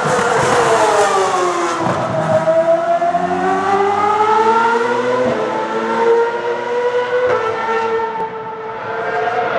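Ferrari Formula 1 car's high-revving engine: the note drops over the first two seconds as it slows for a bend, then climbs as it accelerates out, with a gear change about halfway and another near the end, and fades briefly before the end.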